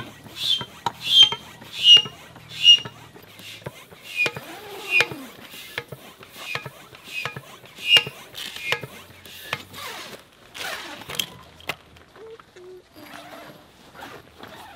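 Tall hand pump inflating an inflatable air tent: steady, rhythmic pump strokes about one and a half a second, each a rush of air with a short high squeak. The strokes stop about eleven seconds in.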